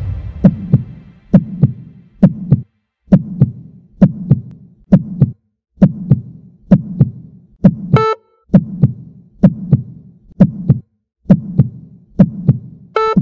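Heartbeat sound effect: a double thump about once a second, steady throughout. A short electronic beep sounds once about eight seconds in and again at the very end, like a countdown timer's beep.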